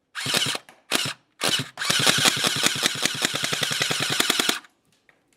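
HK MP7A1 airsoft electric gun (AEG) firing: a few short bursts, then one long full-auto burst of nearly three seconds, its gearbox cycling in a fast, even rattle. The gearbox has been put back together wrongly, probably with a gear at the wrong angle, which makes the gun sound wrong and fire two BBs at a time.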